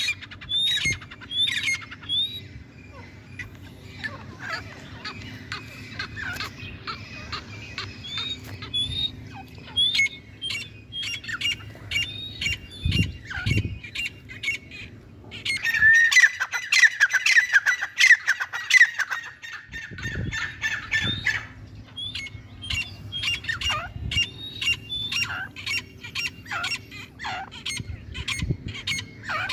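Grey francolins calling: short, rising high-pitched notes repeated several times a second, with a dense, louder burst about halfway through.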